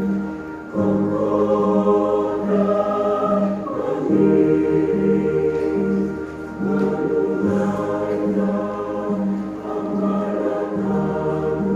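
Church choir singing sustained chords in parts, over a low accompaniment note that pulses about twice a second.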